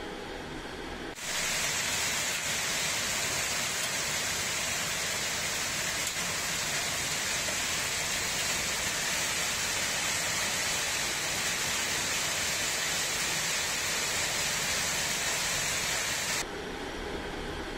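Heavy torrential rain pouring down in a loud, steady hiss. It cuts in suddenly about a second in and stops suddenly near the end, where a lower rumble of storm wind is left.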